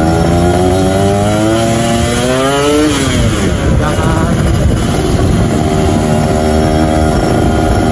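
Two-stroke motorcycle with an HTX aftermarket exhaust under way: the engine note climbs for about three seconds, drops sharply, then runs at a steadier pitch.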